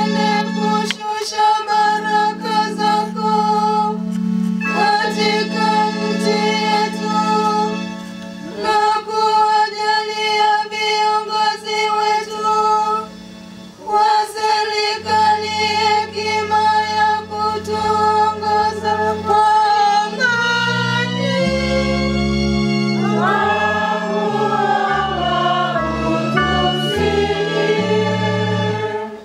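Catholic sisters singing a Swahili litany together, sustained sung phrases over steady held low notes.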